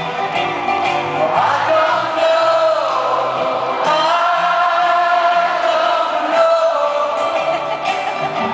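A male singer singing a slow ballad with a live rock band, amplified over a stadium PA and heard from the crowd, with long held sung notes.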